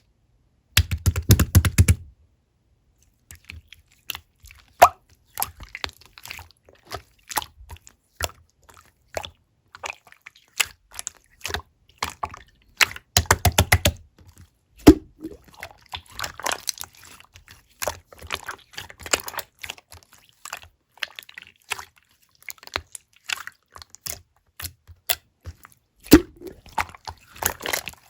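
Black marbled slime being squished and worked by hand: a steady run of sticky clicks and wet pops, with two short runs of rapid clicking about a second in and around the middle.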